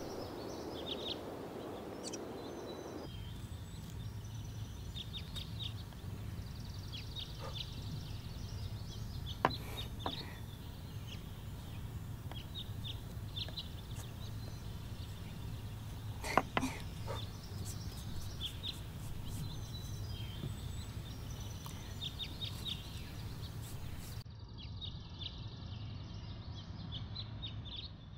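Small birds chirping over a steady low hum, with a few sharp clicks, the loudest about nine and sixteen seconds in.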